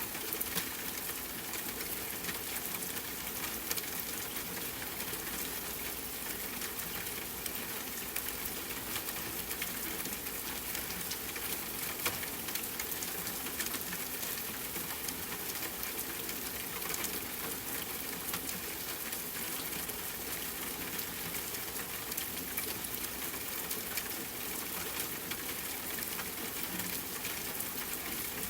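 Steady rain falling on a tent, mixed with a campfire crackling: an even hiss studded with many small clicks and pops, one sharper pop about twelve seconds in.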